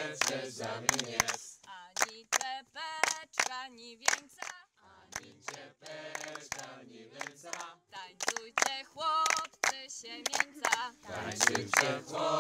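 A group of voices singing a cappella, with held, wavering notes, and sharp hand claps or slaps throughout.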